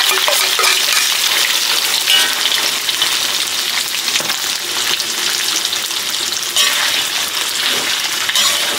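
Soy-marinated beef slices frying in hot oil in a steel wok, a loud, steady sizzle, with a metal spatula scraping and stirring the meat in a few short strokes.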